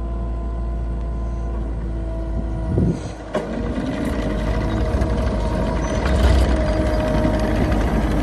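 2005 Gehl CTL70 skid steer's diesel engine running steadily, with a brief break in the sound about three seconds in and a slight rise after about six seconds.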